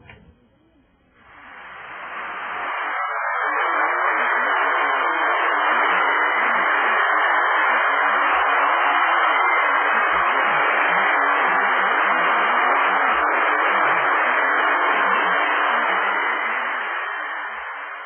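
Steady loud static hiss, fading in over the first couple of seconds and fading out near the end.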